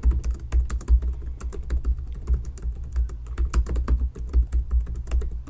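A fast, irregular run of clicks and taps, several a second, each with a dull thump beneath it.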